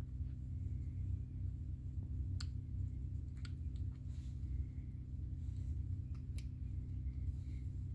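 A few light, sharp clicks of small parts or tools being handled, spread over a steady low hum.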